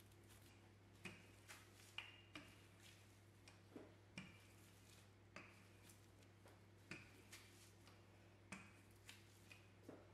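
Faint crinkling and soft clicks of plastic cling film under a wooden rolling pin as pastry dough is rolled out, a small crackle every second or so with each push of the pin.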